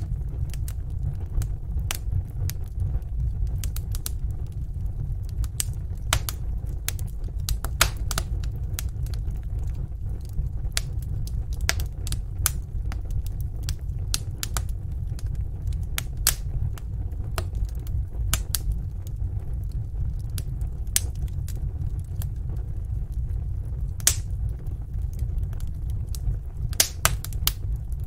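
Fire in a fireplace crackling, with irregular sharp pops and snaps over a steady low rumble.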